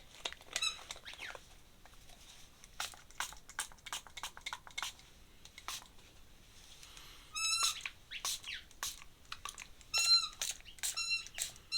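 Squeaky rubbing and scratchy strokes on paper as ink is worked into a drawing, with short high squeaks in clusters about a second in, past halfway and near the end.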